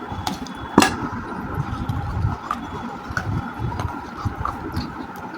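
Chewing hard, crunchy baked clay close to the microphone: irregular muffled crunches, with one sharp crack just under a second in.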